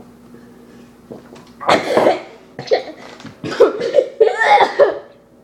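A child coughing and sputtering hard in a rapid run of fits after gulping a drink too fast, as if choking on it. The coughing starts about a second and a half in; the last fit wavers in pitch.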